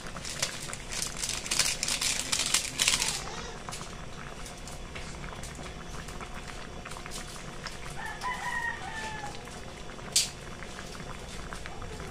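Rustling and pattering of seasoning shaken from a sachet over a simmering pot of vegetables in coconut milk, stopping about three seconds in. About eight seconds in, a rooster crows once, and a sharp click follows about two seconds later.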